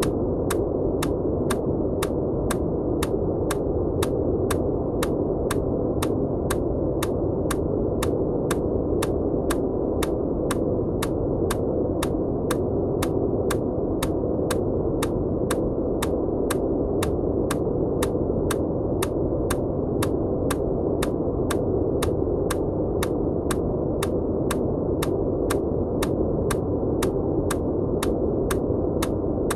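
A steady, deep rushing noise track with an evenly paced click about twice a second laid over it: EMDR bilateral-stimulation clicks over noise.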